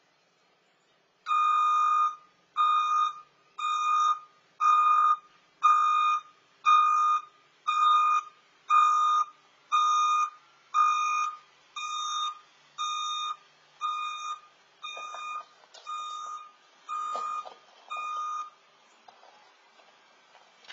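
Delivery van's reversing alarm beeping while the van backs up: a single-tone beep about once a second, some seventeen times. The beeps grow quieter in the second half and stop near the end.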